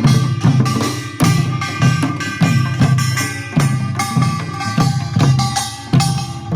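Korean pungmul percussion band playing: drums beating a steady rhythm, a little under two strong beats a second, with metal gongs ringing over them.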